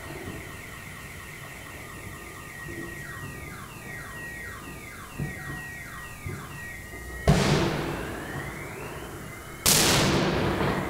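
A car alarm sounding with a steady high tone and a rapid series of falling whoops, while two loud firework bangs go off, the first about seven seconds in and the second near the end, each trailing off afterwards.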